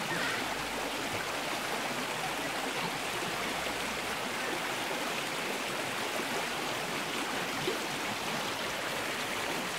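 Small shallow stream running steadily, a constant rush of flowing water.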